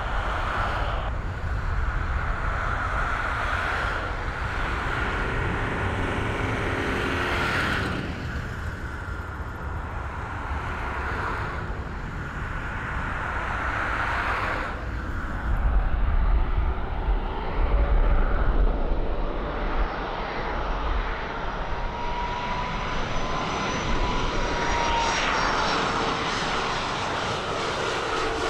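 Boeing 767-200 jet engines at takeoff thrust as the airliner lifts off and climbs away. About halfway through a heavier low rumble takes over. Late on, the whine of an Airbus A330-200's engines on approach comes in and drops slightly in pitch.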